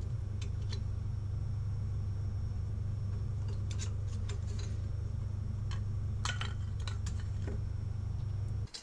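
A steady low electrical hum under light metallic clicks and taps as a steel bottom bracket shell is handled and test-fitted into a bored steel plate on a lathe faceplate, the loudest clicks coming about six seconds in. The hum cuts off suddenly near the end.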